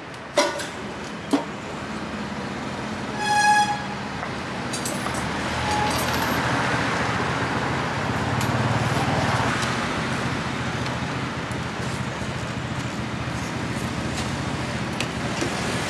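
Two sharp clicks, a short horn toot about three seconds in, then a steady vehicle rumble that swells near the middle.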